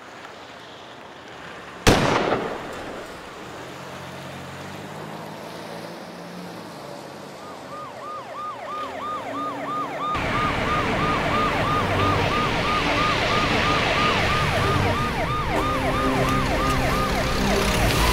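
A single sharp pistol shot about two seconds in, then an emergency-vehicle siren in a fast repeating yelp starting about seven seconds in, growing louder with vehicle and road noise from about ten seconds.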